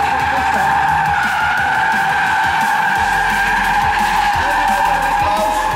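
Rear tyres of a Ford Mustang GT squealing in a long steady howl as the car spins donuts, its V8 engine revving up and down underneath.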